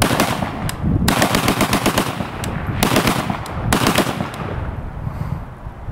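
A 7.62×39 AK pistol bump fired in several rapid strings of shots, fast enough to sound near full-auto, with short breaks between strings. The shooting stops about four and a half seconds in.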